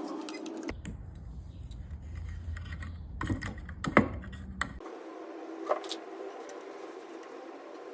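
Sharp clicks and light knocks of hand tools and wood being handled during furniture restoration, the loudest about four seconds in, over a background that changes abruptly twice, from a low rumble to a steady low hum.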